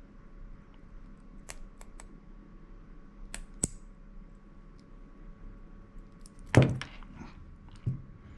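Small metal lighter parts clicking and tapping as a flint and its spring are worked back into an old lighter: a few faint ticks, then a louder clatter about six and a half seconds in and one more click near the end.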